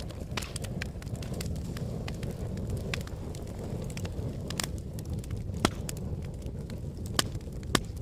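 Paper and wood burning in a metal brazier, crackling with many sharp pops over a low steady rumble. The loudest pops come about five and a half seconds in and twice near the end.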